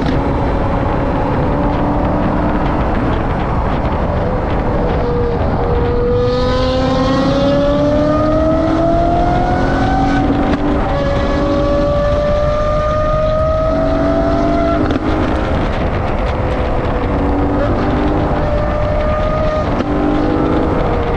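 Straight-piped Lamborghini Aventador Ultimae V12 exhaust accelerating hard, heard from a car following behind. Its pitch climbs in several long pulls, the first and longest starting about six seconds in, each breaking off before the next. Heavy wind and road rush on the front-mounted camera runs under it.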